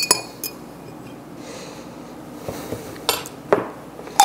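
Cutlery clinking against a glass jar and a plate as pickled onions are served: a sharp ringing clink at the start, light handling noise, then a few sharp clicks and knocks near the end.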